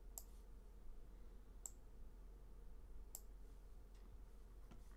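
Faint clicking while working a computer, three clicks about a second and a half apart and a weaker one near the end, over near silence with a low hum.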